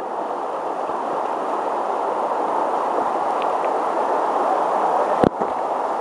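Fast, shallow river riffles rushing steadily. A single short click comes about five seconds in.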